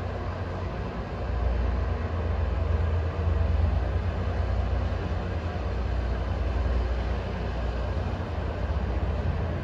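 Rail maintenance train running along the track, a steady low rumble as its headlight draws near.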